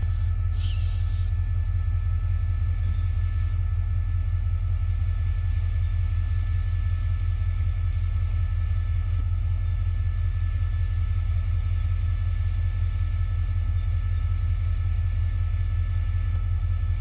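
Steady low rumble of an idling diesel train, with a few faint steady high whines over it and a brief hiss about a second in.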